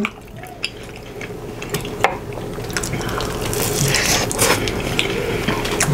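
Close-up eating sounds: wet chewing and lip smacking of saucy food, with scattered sharp clicks, growing louder about halfway through.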